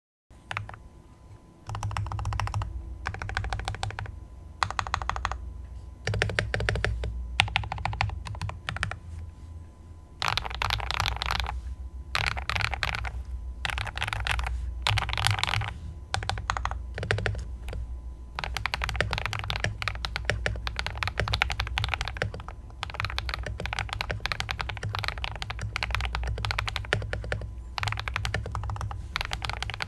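Typing on a Tester68 (CIY68) mechanical keyboard with KTT Wine Red switches and Ocean keycaps: quick runs of keystrokes separated by short pauses, turning into near-continuous typing from about ten seconds in.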